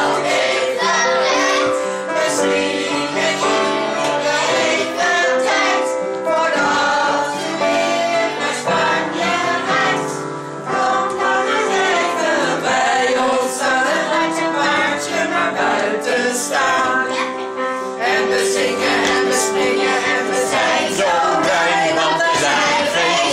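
Several voices singing a song together over music.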